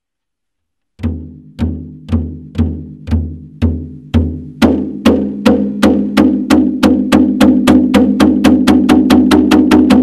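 Soundtrack music: after about a second of silence, sharp percussive hits over deep held notes. The hits start about two a second and speed up steadily until they come several times a second.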